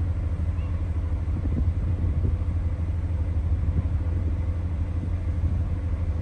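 Wind buffeting the microphone on a ferry's open top deck, a steady low rumble, over a faint steady hum from the ship's machinery.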